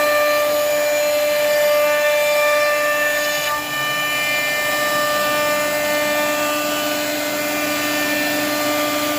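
CNC router spindle running at speed with the bit cutting wood: a steady high whine over a rough cutting noise, dipping briefly about three and a half seconds in.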